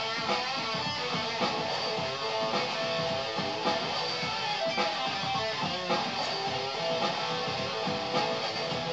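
Electric guitar strummed and played without a break, a solid-body Stratocaster-style guitar.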